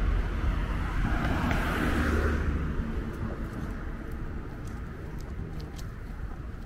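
Road traffic passing: car tyre and engine noise swells twice, then fades after about three seconds into a lower, steady traffic hum with a few faint ticks.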